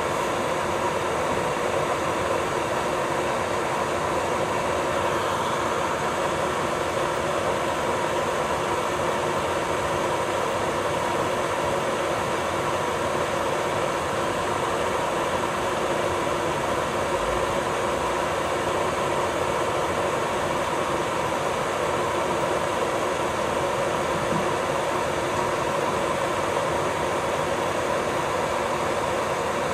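Electric nail drill (e-file) running steadily with a thin bit worked along the cuticle to lift it from the nail plate: a constant motor whine over a gritty grinding hiss.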